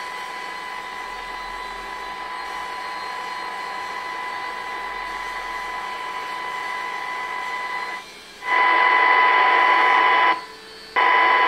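Euro CB Phoenix CB radio's loudspeaker giving a steady high whistle over hiss. About eight seconds in it cuts out for a moment and comes back louder, then cuts out again near the end and returns.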